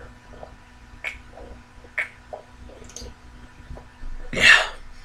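A person gulping a drink from a can: soft wet swallowing clicks about a second apart, then a loud breathy exhale of about half a second near the end.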